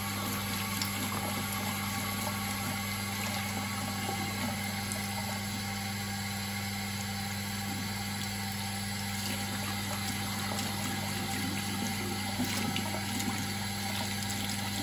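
Tap water running steadily into a ceramic bathroom sink, splashing through a Dyson V15 vacuum filter as it is rinsed and shaken by hand. A bathroom extractor fan hums steadily underneath.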